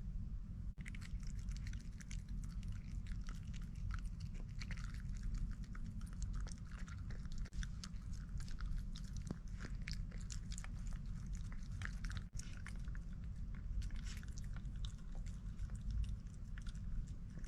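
A person chewing food, with many small wet smacks and clicks, over a steady low hum.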